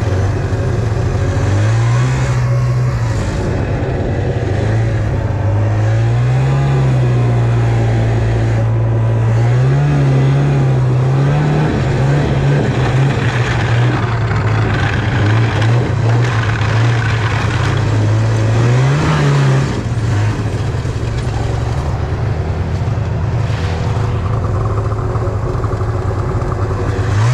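Snowmobile's two-stroke engine running under way, its pitch climbing and dropping back several times as the throttle is blipped.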